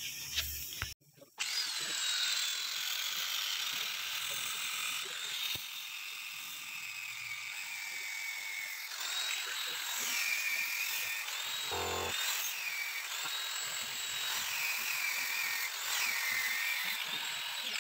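An electric drill spinning a scooter's front CVT pulley while an angle grinder with a sanding disc is pressed against its face, the motors whining steadily and their pitch dipping and recovering several times as the disc bites. This is the worn pulley face being resurfaced by hand to cure the scooter's judder.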